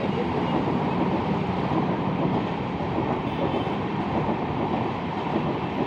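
Train running on its rails: a steady rumble of wheels and cars without distinct beats.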